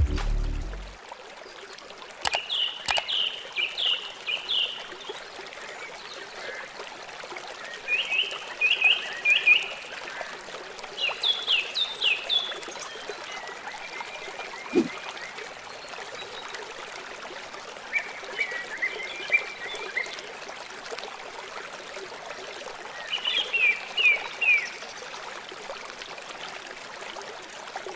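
Steady trickle of running water with a small bird singing short phrases of quick chirps every few seconds.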